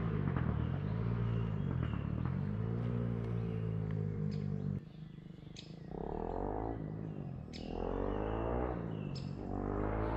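KTM 690 SMC R single-cylinder engine, through an Arrow exhaust with the dB-killer removed, being revved up and let fall back again and again. The note drops off abruptly about five seconds in, then climbs in three more revs.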